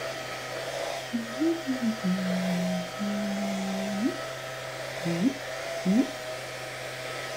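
Small battery-powered rotating makeup brush whirring steadily as it is worked over the face. A lower tone wavers and comes and goes in the middle.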